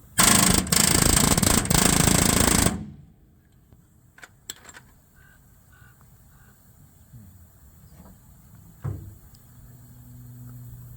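Pneumatic rivet gun hammering a rivet into the lower body panel of a GM New Look bus. It gives about two and a half seconds of rapid, loud rattling with two very brief breaks, then stops. A few small clicks and a single knock follow.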